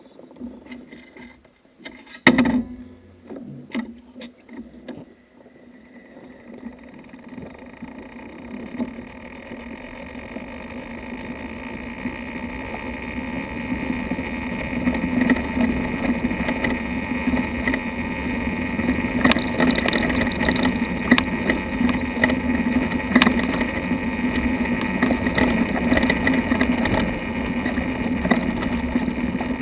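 BMW F800GS Adventure coasting with its engine off: wind and tyre noise builds as the bike gathers speed, with repeated clunks and rattles from the front end and a sharp clunk about two seconds in. The owner traced the clunking to loose, damaged steering head bearings.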